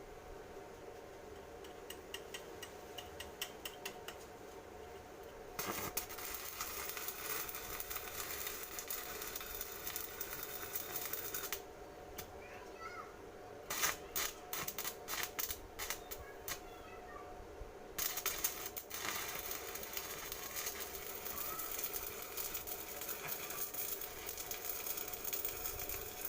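Metal lathe running with a steady hum, with two long stretches of harsh scraping noise from a cutter working metal and a run of sharp clicks between them.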